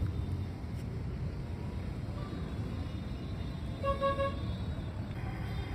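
Road traffic rumbling steadily, with a vehicle horn honking briefly, in a few quick pulses, about four seconds in.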